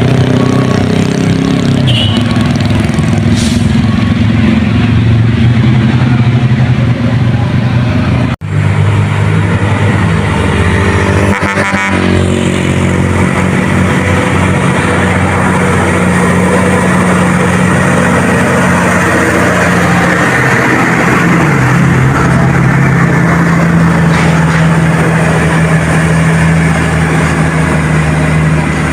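Truck and other road vehicle engines running with a steady low hum, broken by a short sudden dropout about eight seconds in, after which the engine pitch changes.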